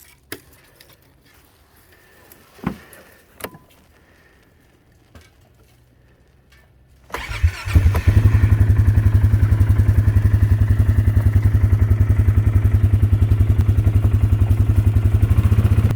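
A few light knocks, then about seven seconds in a motorbike engine starts, catches and settles into a steady, evenly pulsing idle.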